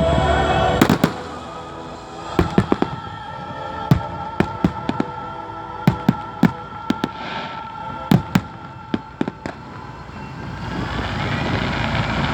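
Fireworks going off: an irregular string of sharp bangs and crackles, several close together at times, with music playing underneath. Near the end the bangs stop and a steady rushing noise builds.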